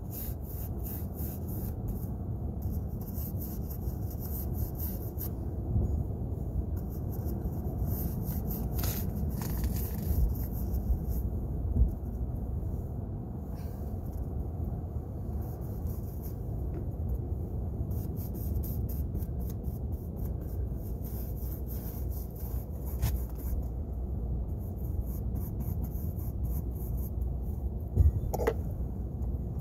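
Paintbrush bristles scrubbing across dry, weathered wooden shingles in runs of quick scratchy strokes, over a steady low rumble. A short falling squeak comes near the end.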